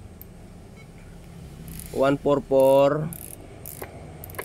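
Clicking of a radio transceiver's tuning knob as the frequency is changed. About two seconds in there is a loud, short pitched sound in three quick parts.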